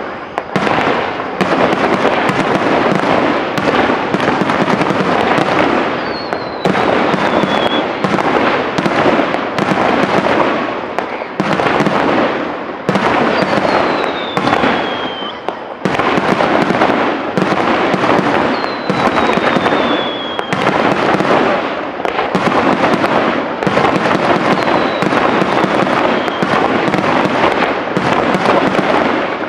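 Aerial fireworks display: shells bursting in dense, rapid succession with hardly a pause. A falling whistle sounds over the bursts four times, each lasting a second or two.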